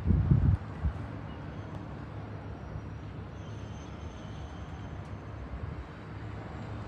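Steady low rumble with a low hum, typical of distant engine noise heard outdoors, with a loud low thump at the very start and a smaller one just under a second in.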